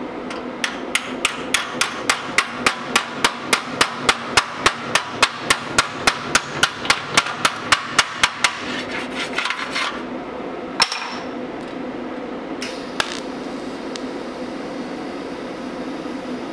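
Body hammer tapping the sheet-steel panel of a 1935–36 Ford dash: an even run of sharp blows, about three to four a second for some eight seconds, then a few scattered taps. Near the end a steady hiss starts as the TIG welding arc is struck.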